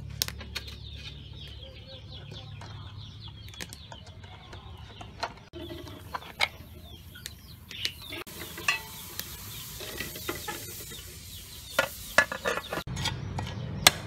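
Chickens chirping and clucking, with scattered light clicks. Near the end come several sharp knocks of a cleaver chopping a fish on a wooden chopping block.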